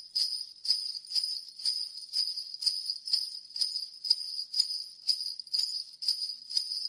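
Jingle bells shaken in a steady rhythm, about two shakes a second.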